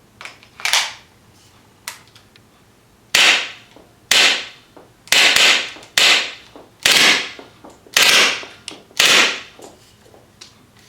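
Kmp9R gas blowback airsoft SMG fired single shots through a prototype 4-inch amplifier barrel extension: about seven loud, sharp cracks roughly a second apart, each with a short ringing tail, after a softer pop and a click in the first two seconds.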